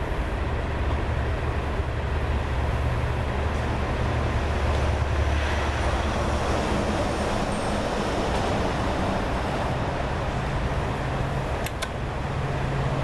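Diesel engine of a 1991 Iveco truck running with a steady low drone; the engine has sat unstarted for five years on ten-year-old fuel. Its note steps up near the end, just after a couple of sharp clicks.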